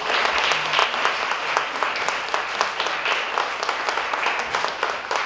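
A crowd of guests applauding: many hands clapping together in a dense, steady patter that eases off slightly near the end.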